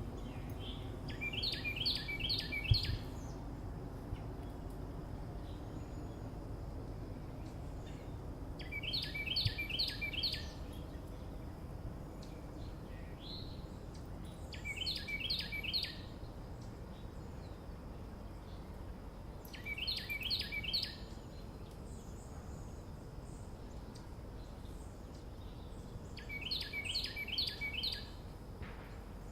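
Early-morning suburban ambience: a songbird repeats the same short song of about five quick, high notes five times, roughly every six seconds, over a steady low background rumble.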